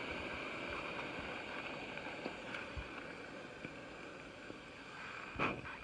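Remote-canister backpacking stove's burner hissing steadily, then dying away gradually as it is turned off at the canister. A short knock near the end.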